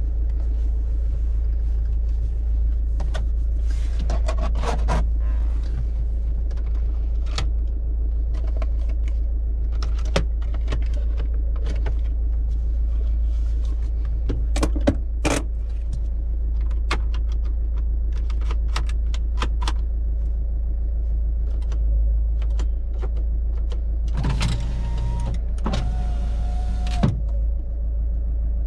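The Citroën Berlingo's 1.9 turbo-diesel idles steadily under a series of clicks and knocks as hands work the interior plastics, seat and handbrake. Near the end an electric window motor runs for about three seconds in two stretches, changing pitch between them.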